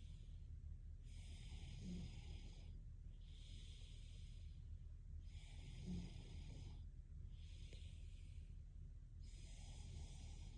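A woman's slow, quiet breathing in her sleep, each breath in and out a soft hiss about every two seconds. Twice there is a brief low snort. A steady low hum sits underneath.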